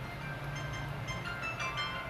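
Background music with short, high, bell-like notes coming in shortly after the start, over a steady low hum.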